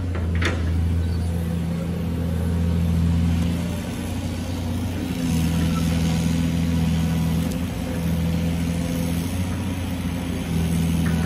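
Caterpillar hydraulic excavator's diesel engine running under working load, its drone easing off and building up again a couple of times as the arm swings and lifts the bucket. A short knock about half a second in.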